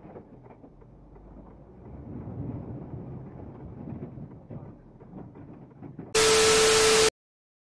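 Muffled low rumble of a truck cab, picked up by a dashcam, growing louder about two seconds in. About six seconds in, a loud burst of hiss with a steady tone through it lasts about a second and cuts off sharply.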